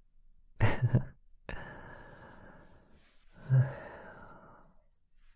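A man's soft wordless vocal sounds close to the microphone: a short low voiced murmur, then a long breathy exhale and a voiced sigh that fades away.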